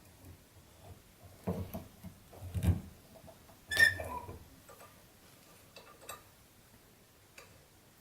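Irregular knocks and clinks of small metal eyelet-setting tools and dies being handled and pressed. There is a dull thump about two and a half seconds in and a sharp, ringing metal clink near four seconds, then a few lighter clicks.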